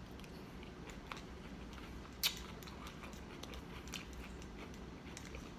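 A person chewing food close to the microphone: faint wet mouth sounds with small clicks, and one sharper click or crunch about two seconds in.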